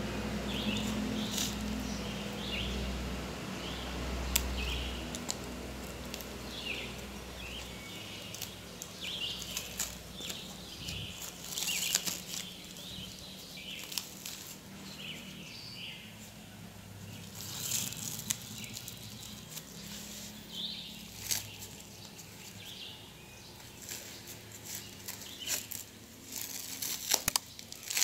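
Clear plastic stretch wrap being pulled and peeled off a seedling's polybag, crinkling and rustling in irregular bursts, with short sharp crackles as it comes loose.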